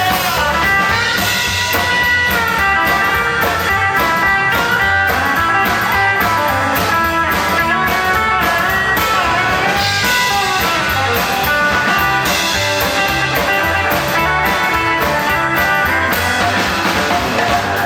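A rock and roll band playing an instrumental break: a lead electric guitar solo over bass and drums, with no singing.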